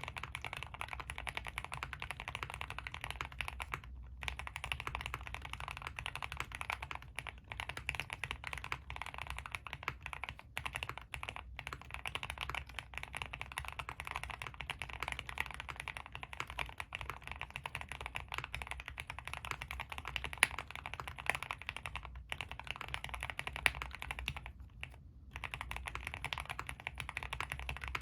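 Continuous fast typing on a custom mechanical keyboard with Tealios v2 linear switches in Cherry top housings on an aluminium plate, full foam and GMK keycaps: a dense run of keystroke clacks with a few brief pauses.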